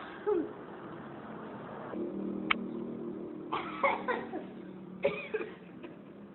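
A person coughing in short bursts: one near the start, a cluster of three or four about halfway through, and two more about five seconds in, over a steady low hum.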